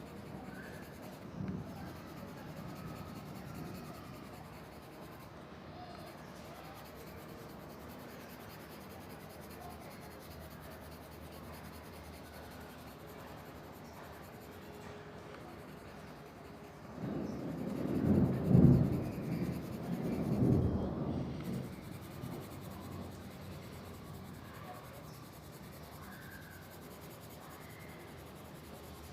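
Pencil scratching on paper over a steady faint hiss. A loud low rumble swells and fades twice about 17 to 21 seconds in.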